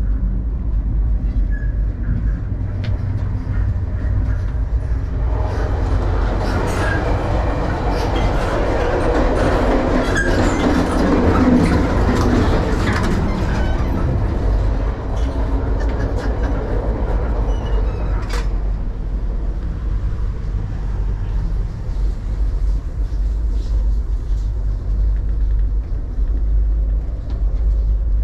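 The Canadian sleeper train running on the rails, heard from on board as a steady low rumble. From about five seconds in it grows louder and noisier, with scattered clicks, then drops back abruptly near eighteen seconds.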